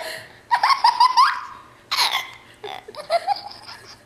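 Two-year-old toddler laughing: three high-pitched bouts of giggling, each a quick run of pulses.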